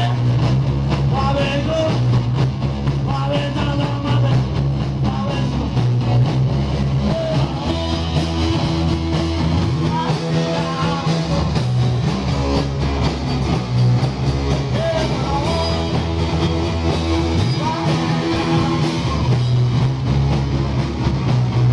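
Live punk rock band playing loud: distorted electric guitars, bass guitar and drums in a small club room.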